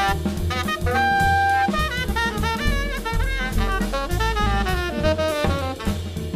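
Jazz octet playing live: saxophone lines with a held note about a second in, over drum kit and bass.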